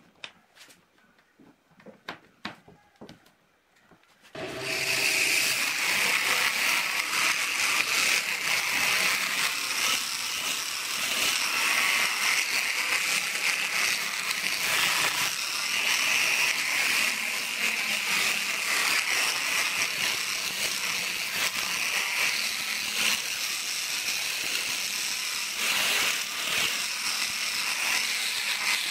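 A few light clicks as the homemade sandpaper flap wheel is handled on the drill. About four seconds in, an electric drill starts and spins the flap wheel against a rusty steel flat bar: a steady, harsh scouring of sandpaper flaps on steel over the drill motor's running.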